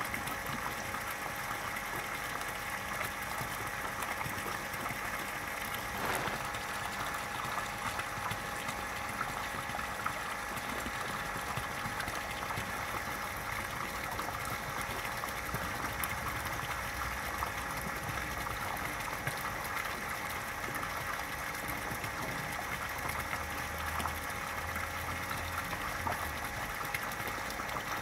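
Garden pond water bubbling up steadily at the surface from a submerged pump outlet, a continuous gurgle.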